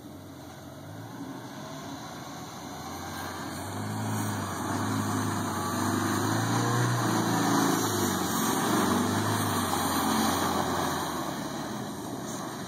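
Great Wall Hover SUV engine pulling through snow in rear-wheel drive, growing louder as the vehicle passes close about halfway through and then easing off as it drives away, with its rear tyres churning snow.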